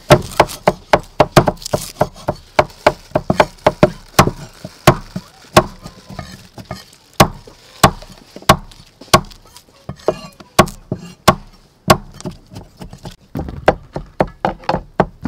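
A cleaver chopping lemongrass stalks on a round wooden chopping block: a steady run of sharp knocks, two or three a second.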